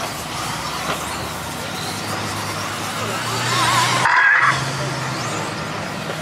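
Radio-controlled 1/10-scale truggies racing on a dirt track: a steady mix of small motors and track noise, with a wavering higher tone a little after three seconds and a brief drop-out about four seconds in.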